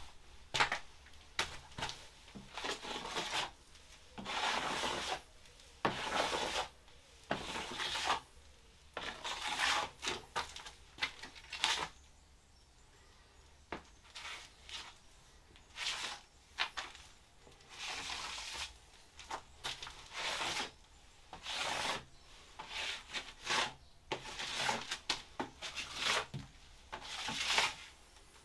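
A hand tool scraped across a surface in repeated, irregular strokes during tiling work, with a short pause about halfway through.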